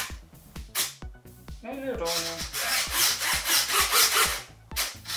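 RC model servos whirring in quick back-and-forth strokes, several a second, as a servo tester sweeps the aileron surfaces. The whirring starts about two seconds in and pauses briefly near the end.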